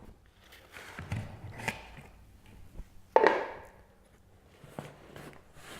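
Several knocks and clunks of hard parts being handled, the loudest a sharp knock a little past the midpoint.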